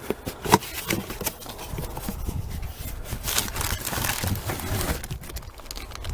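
Packaging rustling and crinkling with scattered clicks and light knocks as a new brake master cylinder is handled and taken out of its box.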